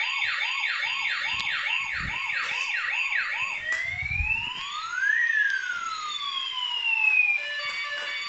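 Toy police car's electronic siren: a fast warbling yelp, about two and a half sweeps a second, for roughly three and a half seconds, then a switch to one slow wail that rises and falls. A steady electronic tone takes over near the end.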